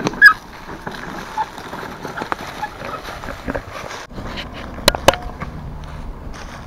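Loaded wheelbarrow pushed over uneven ground strewn with dry leaves, footsteps crunching and the barrow knocking as it goes, with two sharp clacks about five seconds in.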